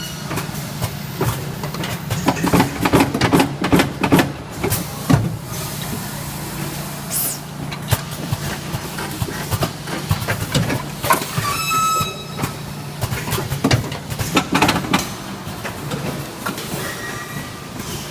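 Automatic weighing vacuum packaging machine running: a steady hum under repeated clacks and knocks from its mechanisms, a short hiss of air about seven seconds in, and a brief pitched tone about twelve seconds in.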